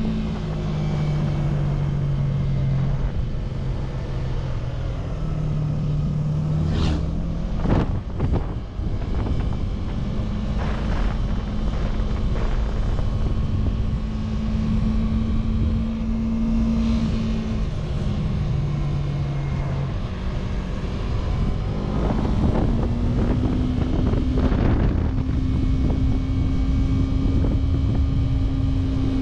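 Yamaha YZF-R3's 321cc liquid-cooled parallel-twin engine running under way at steady cruising revs, with wind noise. The engine note drops lower three times as the revs fall, then climbs a little higher near the end.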